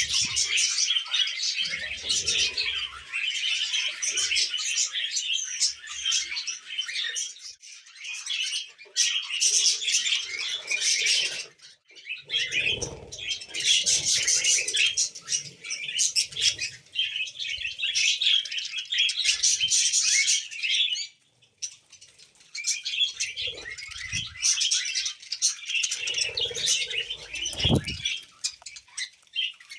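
Budgerigars warbling and chirping in a rapid, continuous chatter, pausing briefly twice, with a low knock near the end.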